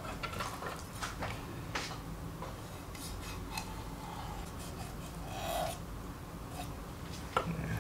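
Kitchen knife scoring through the scales and skin of a whole sea bream on a wooden cutting board: scattered faint crisp cuts and light knocks of the blade, with a short scrape about five and a half seconds in.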